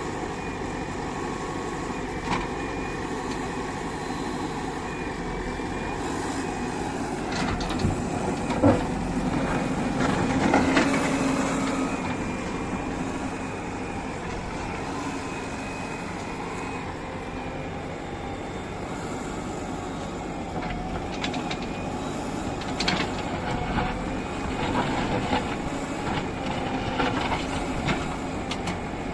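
Diesel engine of heavy earthmoving machinery running steadily, with scattered metallic clanks and knocks: a cluster about a third of the way in and more near the end.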